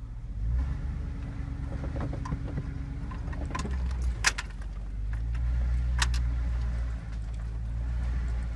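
GMC Sierra's 5.3-litre V8 engine running low and steady as the truck crawls along a trail, its rumble swelling a little about five seconds in. Two sharp knocks, one about four seconds in and one about six, stand out over a few lighter clicks.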